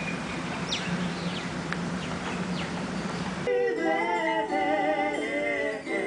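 Birds chirping in short, quick calls over a steady low hum. About halfway through, music with guitar and singing cuts in abruptly and replaces them.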